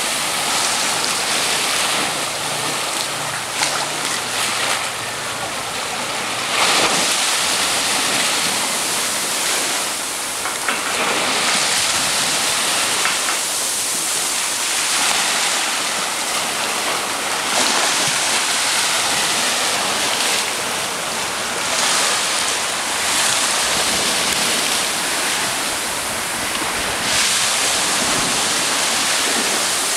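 Small sea waves washing onto the beach: a steady rushing that swells every few seconds.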